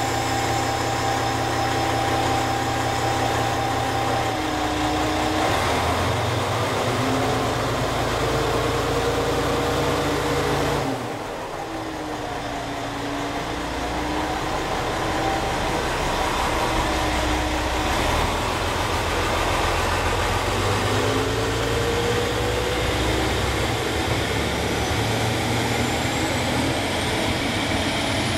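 Diesel engines of Chizu Express HOT3500-series railcars running at the station, a deep hum with an engine note that rises and falls as the throttle changes. A high whine climbs near the end as another railcar approaches.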